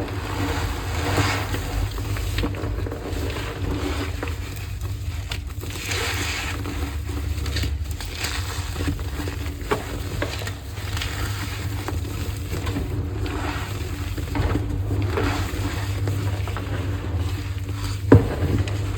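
Blocks of AGI gym chalk crushed and squeezed by hand, a run of squeaky crunches every second or two over a steady low rumble, with one sharp snap near the end.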